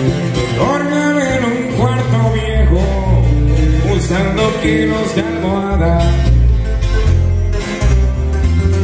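Live band of electric bass and acoustic guitars playing through PA speakers, with a singer's melody over a strong bass line.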